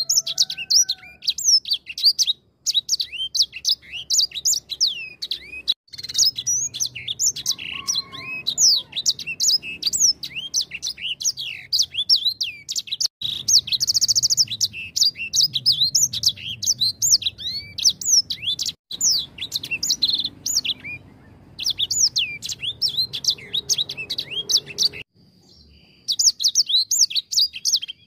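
Grey singing finch (white-rumped seedeater, the 'sanger') singing a long, fast, varied song of high chirps and whistled rising and falling slurs, broken by a few short pauses.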